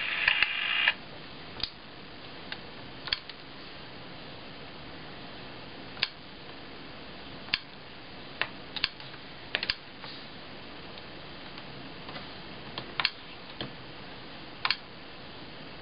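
The last second of a voice recording played through the Sharp Mobilion HC-4500 handheld PC's small built-in speaker cuts off. It is followed by about a dozen irregular sharp clicks of a stylus tapping the touchscreen, over a faint steady hiss.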